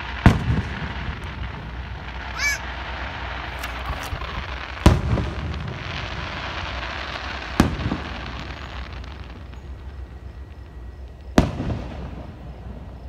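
Aerial fireworks shells bursting: four sharp bangs a few seconds apart, each trailing off briefly, over a steady background hiss.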